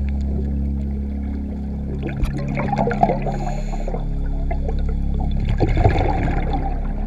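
Scuba regulator exhaust bubbles, heard underwater: two bursts of bubbling from an exhaled breath, the first about two seconds in and the second near the end. Steady low droning tones of ambient background music run beneath.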